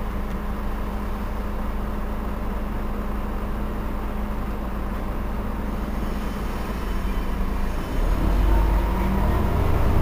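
Heuliez GX 327 city bus's rear-mounted diesel engine idling steadily at a stop. About eight seconds in it grows louder and deeper, with a faint rising whine as the revs come up.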